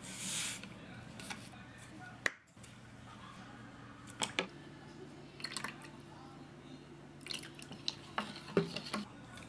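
A wooden spoon stirring and tapping against a glass measuring cup as seasoning ingredients are added and mixed, giving scattered clicks and short scrapes over a low steady hum.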